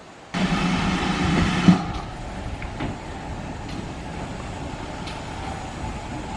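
Green steam tank locomotive running light at low speed. It is louder for the first second and a half, then settles to a quieter steady running sound with a few faint clicks.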